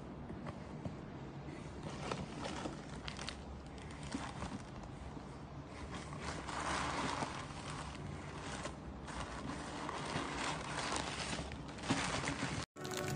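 Plastic bags crinkling and cardboard and paper packing rustling as a packaged vacuum filter is handled in an open box, with scattered small knocks; the crinkling is loudest a little past the middle. The sound drops out briefly near the end and music starts.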